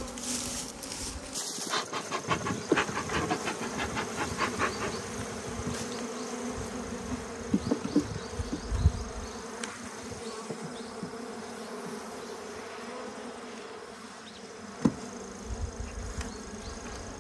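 Western honeybees buzzing in a steady hum around an open hive, agitated ('angry') as two colonies are combined. Scattered clicks and a few sharp knocks from the hive being worked sound over the buzzing.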